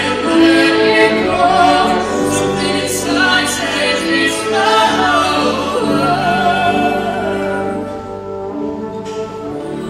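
Show choir singing with instrumental accompaniment, lead voices holding long notes with vibrato over the ensemble. The music eases slightly quieter near the end.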